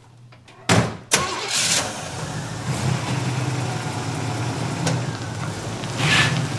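Pontiac Trans Am's 301 V8 starts with a sharp burst about a second in, then settles into a steady, lumpy idle.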